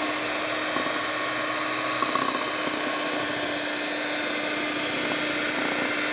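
Electric hand mixer running at a steady speed, its twin beaters whirring through cake batter in a steel bowl.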